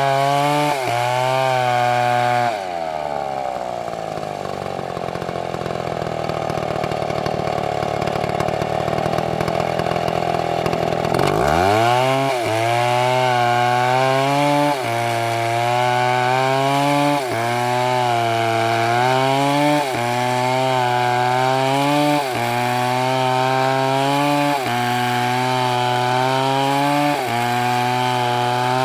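Large two-stroke MS720 chainsaw at full throttle. A couple of seconds in it drops back to a low idle. About halfway through it revs sharply back up and runs flat out, with brief dips every two to three seconds as it cuts into wood.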